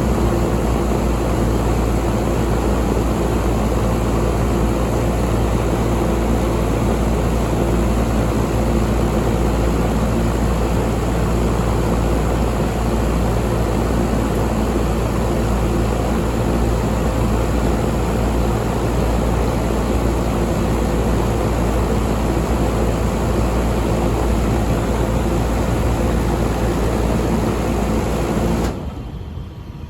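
A York 5-ton air conditioner's outdoor unit running with a steady low hum and an even rush of air. About a second before the end the sound drops off sharply.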